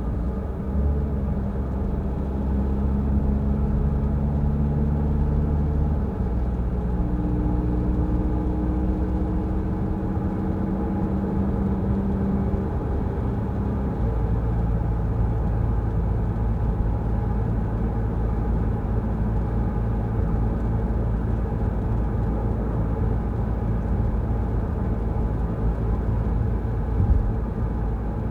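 Peugeot Rifter driving on a wet road: steady engine and road noise. The engine hum changes pitch a few times in the first half, then holds steady.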